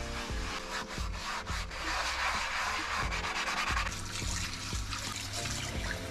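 A sponge scrubbing a cast-iron frying pan in a kitchen sink, a continuous rubbing sound that is strongest midway. In the second half the tap runs onto the pan as it is rinsed.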